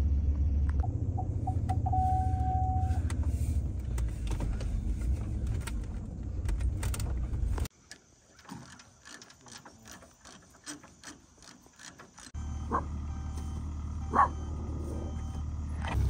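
Low, steady engine rumble heard from inside a vehicle's cab, with a few short chime beeps and a held chime tone about a second in. About eight seconds in it cuts off suddenly to near quiet with faint clicks, then a steadier background returns with two short, sharp sounds.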